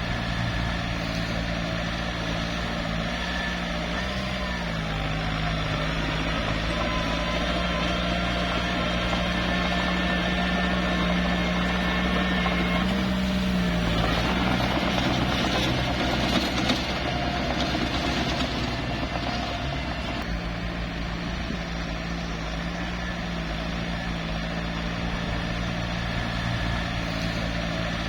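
Small bulldozer's diesel engine running steadily, its pitch rising and falling slightly as the throttle changes. About halfway through there is a louder, rougher stretch of several seconds, then it settles back to an even run.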